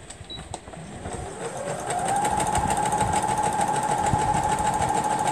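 Sewing machine starting about a second in, its motor whine rising over about a second, then running steadily at speed with a fast, even stitching rhythm.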